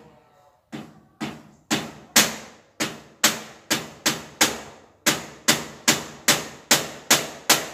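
Hammer blows struck in a steady run, about two to three a second, each sharp strike followed by a short ring. The first few blows are softer, and there is a short pause about halfway through.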